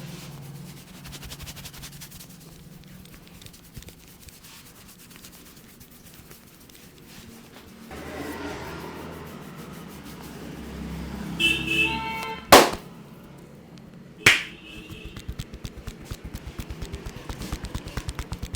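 Hands working a head massage over background music: two sharp, loud smacks past the middle, the first the loudest, then fast rhythmic tapping of about four to five strokes a second near the end.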